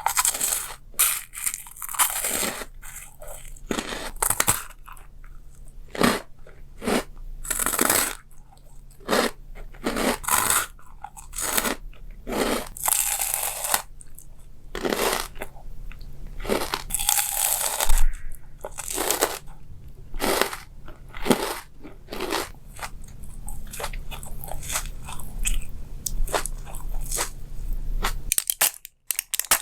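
A person crunching and chewing crunchy food, mukbang-style: irregular crisp bites and chews one after another, some short and some drawn out.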